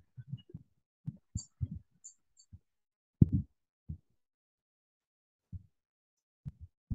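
Cloth wiping a whiteboard: irregular dull low thumps and bumps as the hand and cloth press and sweep across the board, the loudest about three seconds in, growing sparser towards the end.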